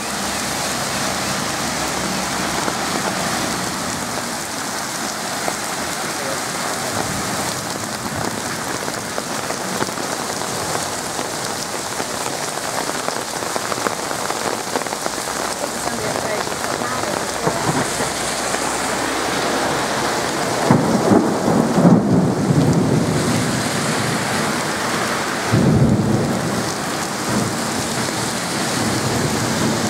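Heavy rain pouring steadily onto the road and pavement. A rumble of thunder swells up about two-thirds of the way through, and another comes near the end.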